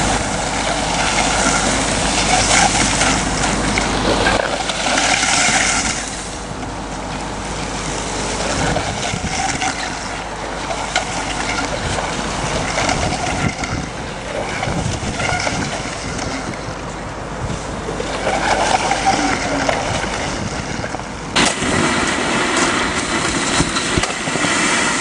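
Suction excavator sucking snow through its hose: a loud, continuous rushing noise, louder for the first six seconds, and jumping louder again about 21 seconds in.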